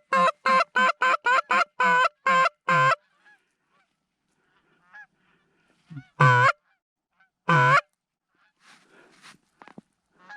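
Goose honking, close and loud: a quick run of about nine honks over the first three seconds, then two longer single honks about six and seven and a half seconds in, with faint distant goose calls near the end.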